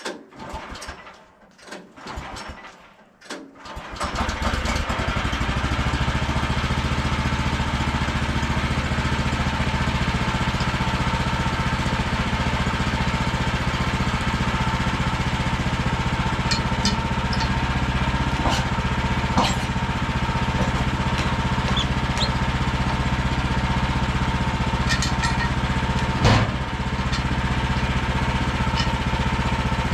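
Sawmill's engine being started: a few short, uneven bursts of cranking, then it catches about four seconds in and runs steadily. A couple of brief knocks sound over the running engine, the louder one near the end.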